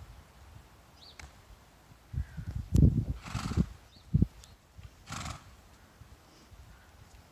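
A ridden horse trotting on a sand arena: dull thuds from about two to four seconds in, and two short breathy snorts, one about three seconds in and one about five seconds in.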